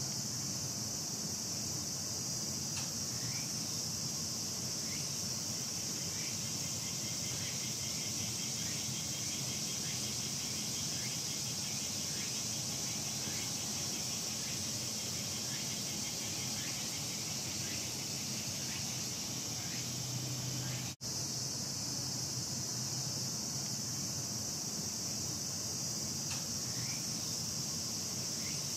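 Steady high-pitched drone of insects, with faint short rising chirps repeating every couple of seconds. The sound cuts out for an instant about two-thirds of the way through.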